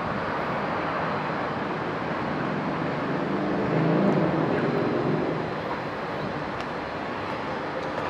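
Steady outdoor background noise, with an engine passing that swells to a peak about four seconds in and then fades.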